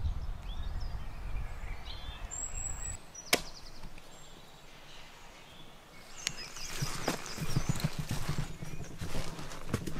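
Outdoor ambience in two parts. The first three seconds have a low wind rumble on the microphone and faint bird chirps, ending in one sharp click. From about six seconds in comes a run of rustling, cracking and knocking, like someone moving over dry sticks and reed debris.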